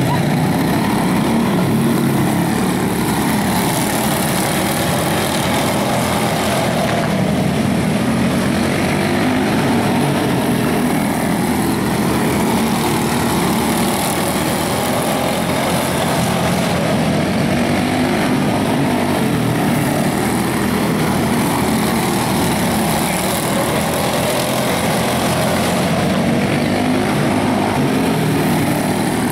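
Several quarter-midget race cars, small single-cylinder Briggs & Stratton Animal engines, running together around a dirt oval. Their buzz is steady and dense, with the pitch rising and falling as the cars speed up on the straights and ease off into the turns.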